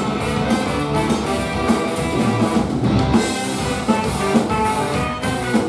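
Live ska-punk band playing: electric guitars, bass and drum kit with a horn section of two saxophones and a trombone, at a steady full volume.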